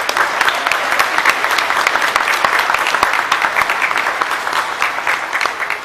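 Audience applauding, steady dense clapping that begins to fade near the end.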